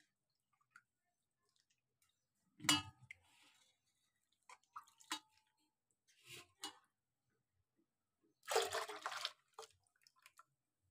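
Hands squeezing and rinsing a lump of freshly churned butter in water in a steel bowl: scattered wet squelches and drips, washing out the sour buttermilk. A thump comes about three seconds in, and a louder splashing lasting about a second comes near the end.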